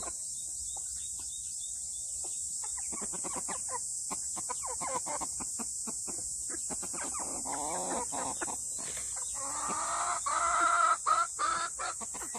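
Silkie chickens clucking as they feed, over many short ticks of beaks pecking at the ground. Near the end comes a louder, drawn-out call lasting about two seconds.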